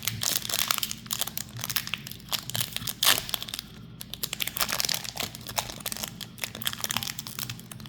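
Foil Pokémon booster pack wrapper being torn open and crinkled in the hands: a dense run of crackles, with one louder sharp crackle about three seconds in.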